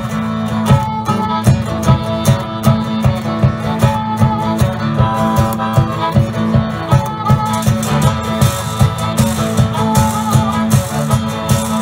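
Live blues band playing an instrumental passage: guitars over a steady drum beat, with a sustained higher melody line that bends in pitch near the end.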